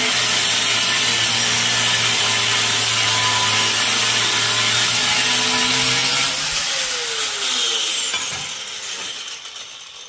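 Angle grinder with a cut-off wheel cutting through heavy-gauge (about 3/16-inch) sheet metal. About six and a half seconds in it comes off the cut and winds down, its whine falling in pitch as it slows.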